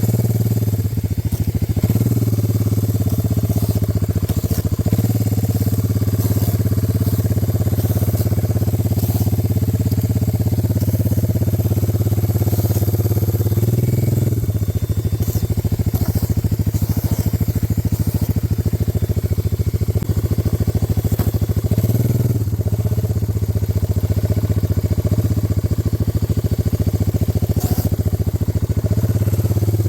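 A four-wheeler's engine runs steadily at low speed. Its pitch and loudness shift a few times as it moves.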